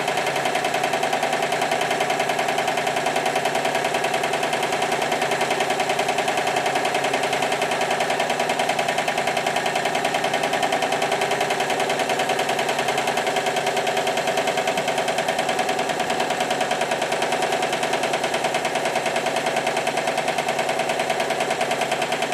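Stuart triple-expansion model marine steam engine running fast on live steam, giving a rapid, even beat that holds steady throughout.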